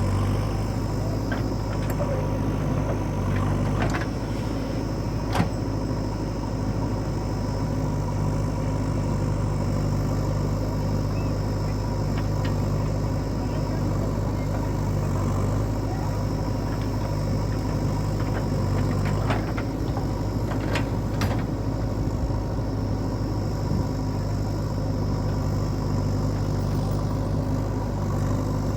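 Heavy diesel machinery running steadily at an even engine speed, with a few sharp knocks and clanks scattered through, the loudest about five seconds in.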